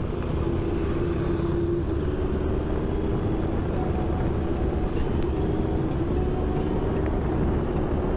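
Honda CBR650F's inline-four engine running at a steady cruising pitch while riding, mixed with heavy wind rush on the microphone.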